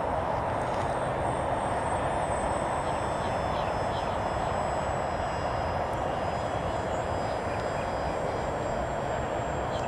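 Electric motor and propeller of a radio-controlled foam Corsair model plane in flight, heard as a steady hiss with a thin high whine.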